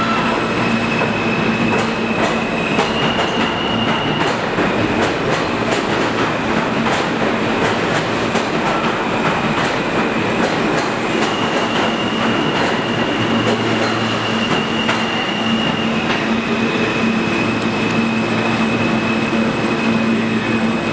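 R160 subway train running through an underground station: a steady rumble and rail clatter, with a low hum and high steady whining tones that step up and down in pitch a few times.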